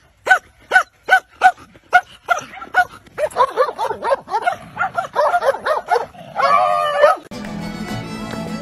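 Dog barking in a steady rhythm, about two to three barks a second, then breaking into a quick run of yips and whines that ends in one longer drawn-out call. Background music takes over near the end.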